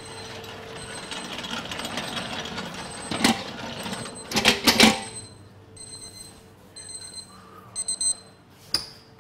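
Kitchen clatter over a steady background hum: a few sharp metal knocks about three to five seconds in, and short high electronic beeps that come in brief runs, one quick run near the end.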